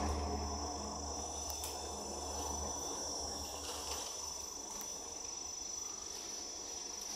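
Steady high-pitched drone of crickets or other insects, with a low rumble under it that fades out about three seconds in.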